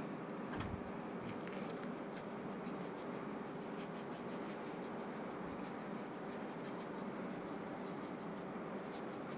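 Faint, irregular patter of ground pepper sprinkled from a jar onto raw steaks and a plastic cutting board, with small scratchy ticks over a low steady room hum.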